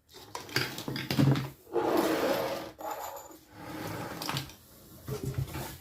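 Glass dishes clinking and knocking against each other as they are handled and lifted out of a box, with some rustling between the clinks.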